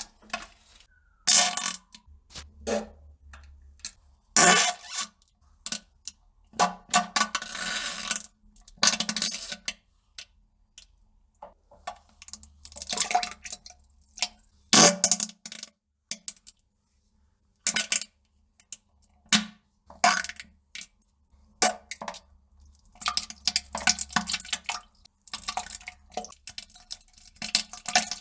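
A person on the toilet defecating and passing gas: a long irregular series of sputtering farts and splashes into the toilet water, some lasting a second or more and many brief, with short silences between.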